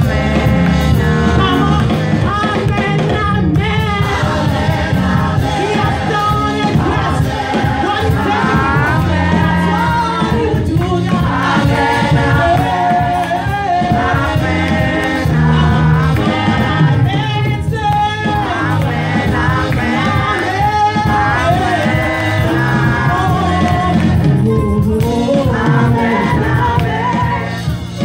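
Live gospel praise music: a lead singer and choir singing 'Amen' over keyboard and a steady drum beat.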